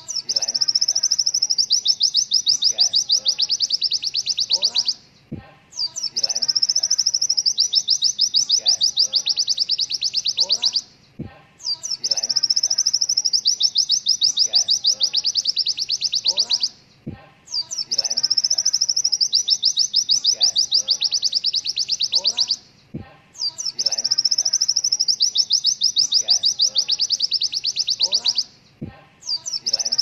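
White-eye (pleci) singing a high, very fast rapid-fire trill of repeated notes (the 'tembakan' shots). Each burst lasts about five seconds and is followed by a short pause, six times in all, over fainter, lower chirping.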